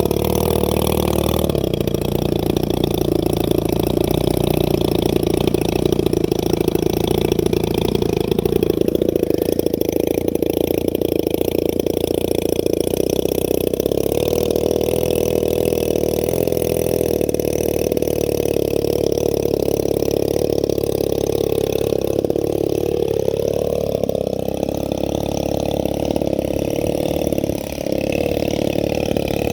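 A 40cc boxer two-stroke model airplane engine running continuously in flight. Its pitch climbs about three quarters of the way through, with a brief dip in sound shortly before the end.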